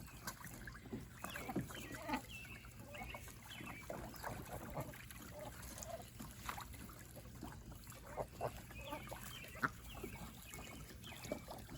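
Geese and ducks feeding on watermelon pieces in and around a small pool: many small pecking, dabbling and splashing sounds, with a few short soft calls.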